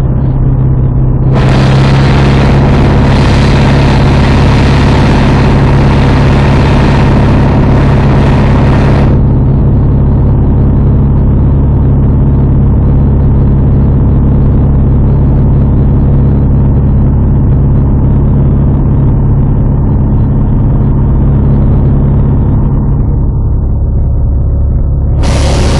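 Light aircraft's engine and propeller droning steadily in cruise, heard inside the cockpit.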